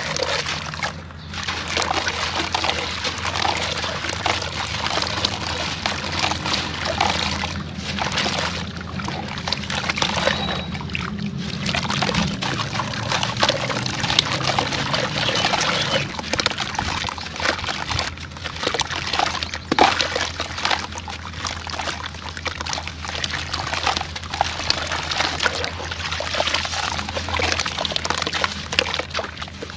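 Sand-cement chunks crumbling, the grains pouring and trickling in a dense, continuous crackle with a few brief pauses.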